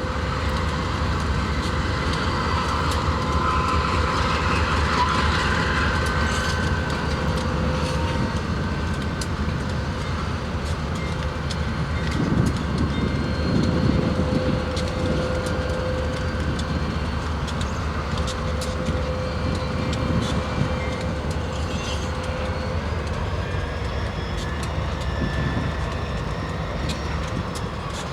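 Diesel freight locomotives moving slowly on yard track: a steady low engine rumble with scattered clicks of wheels over rail joints and faint steady squealing tones.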